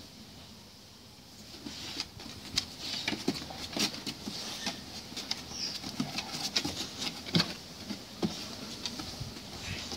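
Staffordshire bull terrier's claws and paws on wooden decking as it plays with a rope toy: irregular clicks, taps and scuffs, starting about a second and a half in.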